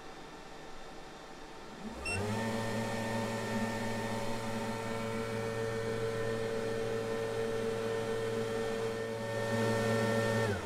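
A 12-volt boat bilge blower fan is switched on about two seconds in. It spins up quickly to a steady motor hum and runs evenly, then winds down in a falling hum near the end as it is switched off. A short faint beep sounds as it comes on.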